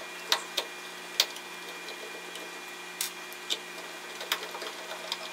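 Scattered light clicks and ticks of a Phillips screwdriver working the screws out of the metal bracket that holds an old oil-filled capacitor to a wooden crossover board. The loudest click comes about a second in.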